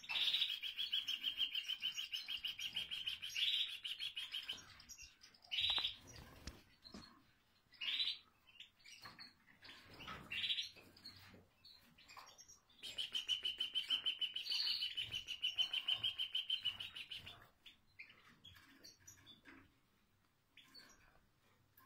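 Caged European goldfinches (parva race) twittering: two long, fast, buzzy trills of about four seconds each, the first at the start and the second about halfway through, with short single chirps between them.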